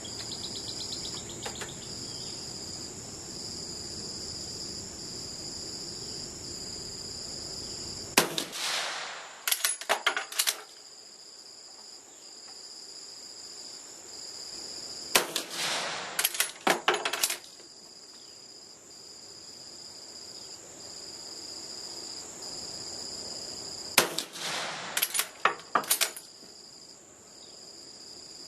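Three rifle shots from an Austrian M1888/95 straight-pull rifle firing reduced cast-bullet 8x50R loads, spaced several seconds apart, each echoing briefly and followed about a second later by a quick run of metallic clicks as the bolt is worked. Crickets trill steadily underneath.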